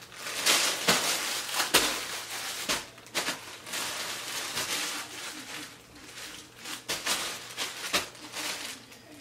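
Clear plastic poly bags holding clothes crinkling and rustling as hands sort through a pile of them, with irregular crackles and sharp clicks.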